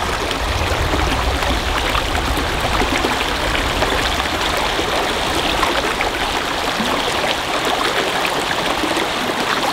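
Small stream running steadily over a riffle into a pool, a constant rush of water, with a low rumble under it for the first few seconds.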